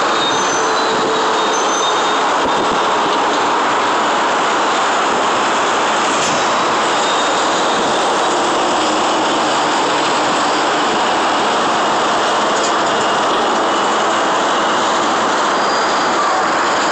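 Steady roar of heavy city traffic on the elevated expressway below, an even rushing noise that does not let up. A few faint high squeals sound in the first couple of seconds.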